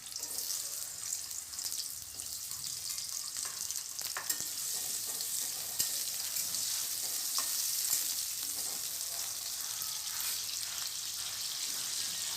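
Cut potato pieces frying in hot cooking oil in a kadai, a steady sizzle. A few light clicks come from a spatula stirring.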